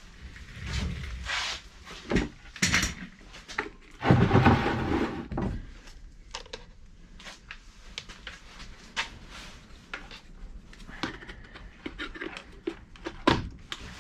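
Irregular knocks and clatter of objects being handled, with a louder rush of noise about four seconds in.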